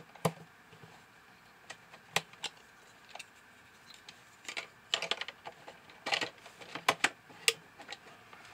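Irregular sharp plastic clicks and taps from a toy coin bank being handled: AA batteries seated in its battery compartment and the plastic battery cover pressed back into place. The clicks come thickest in the second half.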